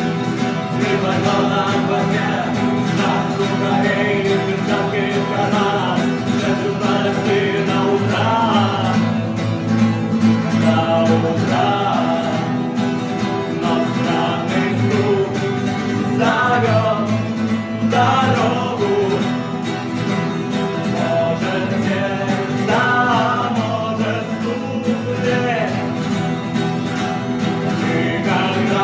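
Guitar music: a song cover's instrumental passage, with a steady accompaniment and a melodic line moving above it.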